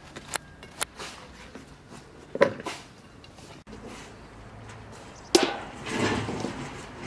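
Scattered knocks and clatter of hands-on cooking work: a few light taps, a sharper knock about two and a half seconds in, and a loud knock about five seconds in followed by a second of rustling and scraping.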